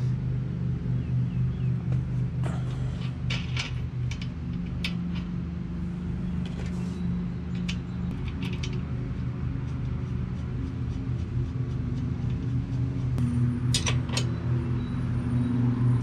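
Scattered metallic clicks and taps of a wrench working the rear axle nut of an e-bike's hub-motor wheel, over a steady low hum.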